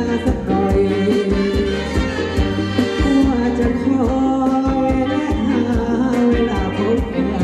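A live Thai ramwong dance band playing, with a steady drumbeat under singing and saxophone.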